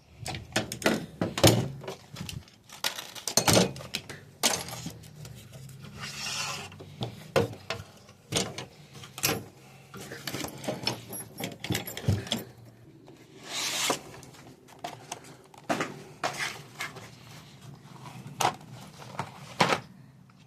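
Tool sockets being handled and set into plastic socket trays in a toolbox drawer. Irregular clinks and knocks are mixed with rubbing and several longer scrapes.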